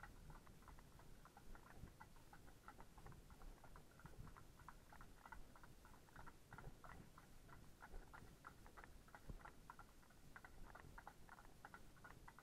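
Faint, steady clip-clop of horses' hooves at a walk, about four hoofbeats a second.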